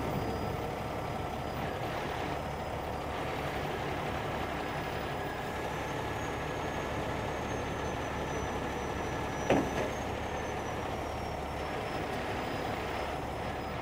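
Heavy rotator tow truck's diesel engine running steadily to power the boom hydraulics while it lifts a load on chains, with one sharp knock about nine and a half seconds in.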